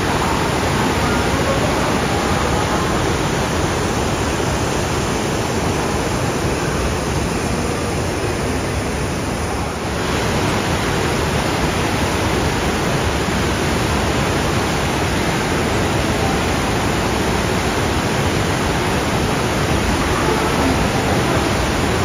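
Waterfall with plentiful white water pouring over a rock ledge into a pool, a loud, steady rush of falling water. It turns slightly duller for a few seconds before brightening again about ten seconds in.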